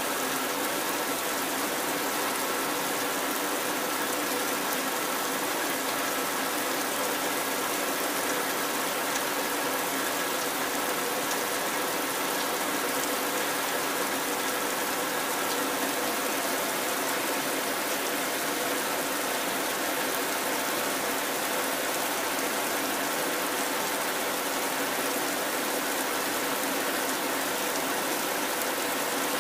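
Steady, even rush of rain and wind, unchanging in level throughout, with a faint steady hum underneath.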